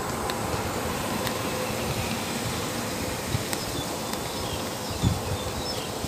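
Steady outdoor background noise with a faint, steady insect buzz. A few faint high chirps come near the end, and there is a brief low thump about five seconds in.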